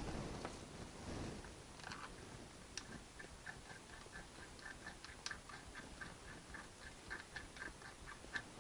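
Faint rustling and handling at the start as hands work over the metal brake caliper on a cardboard-covered bench. From about three seconds in comes a steady light ticking, about four ticks a second.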